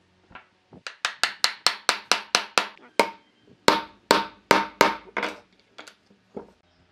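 A quick run of sharp knocks on wooden table-stand parts, about four or five a second, then a slower, uneven run of heavier knocks. The parts are being struck to seat a joint as the stand is assembled.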